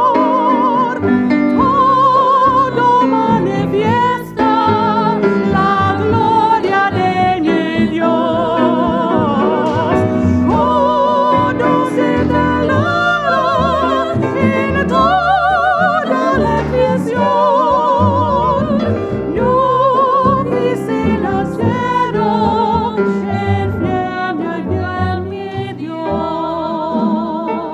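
Women singing with a wide vibrato, accompanied by upright bass, piano and drum kit.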